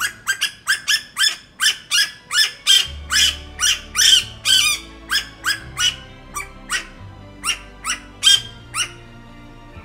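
Asian koel calling in a rapid series of shrill notes, each rising sharply in pitch, about four a second at first and loudest in the middle, then spacing out to about two a second.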